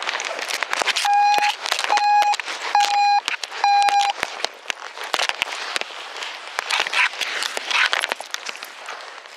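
Four short electronic beeps, about one a second, all on the same mid-pitched tone. Under them runs continuous rustling and crackling from the camera and gear being handled.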